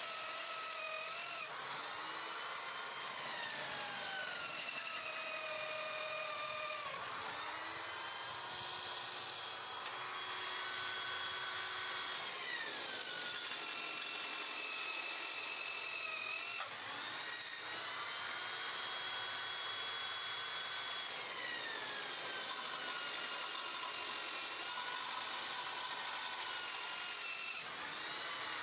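Electric drill boring into a steel tractor frame rail, its motor whine sagging in pitch as the bit bites under pressure and climbing back as the load eases, several times over.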